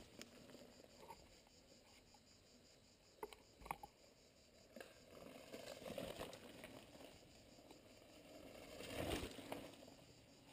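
Faint rolling noise of a mountain bike's tyres on a leaf-covered dirt trail. A few sharp clicks and rattles come about three and a half seconds in, and the noise swells a little twice later on.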